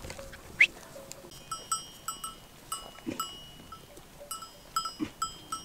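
Bells on a grazing flock of sheep and goats clanking irregularly, a dozen or so ringing strikes. A brief rising whistle-like call about half a second in is the loudest sound.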